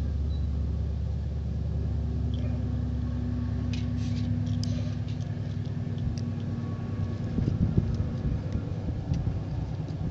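A steady low rumble with a low hum that stops about eight seconds in. Over it come a few sharp clicks and handling sounds of small plastic toy bricks and a minifigure being fitted together.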